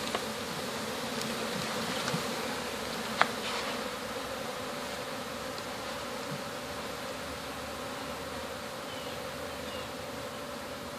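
Honeybees of a disturbed colony being shaken out of their birdhouse, buzzing in a steady hum that is a little louder in the first few seconds. One sharp knock comes about three seconds in.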